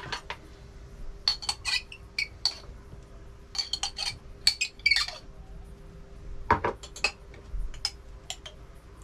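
A metal teaspoon clinking and scraping against a small glass jar of seasoning as it is scooped out: irregular clusters of sharp, ringing clicks, over a faint steady hum.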